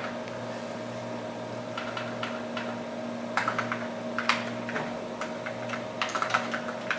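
Typing on a Xerox Alto keyboard: scattered keystrokes from about two seconds in, then a quicker run of keys near the end, over a steady hum.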